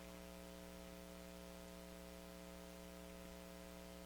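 Faint, steady electrical mains hum made of several fixed tones over a light hiss.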